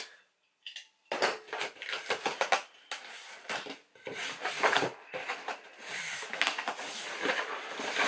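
Cardboard shipping box being opened by hand: packing tape pulled and flaps scraped and rustled, an irregular run of crinkly scrapes and sharp taps that starts about a second in.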